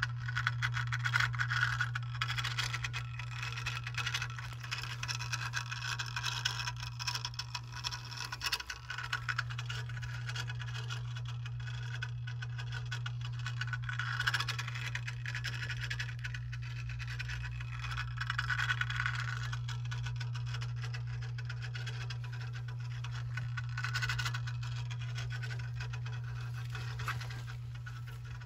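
Circulation pump running: a steady low motor hum with a scratchy, rattling noise from its bearings over it.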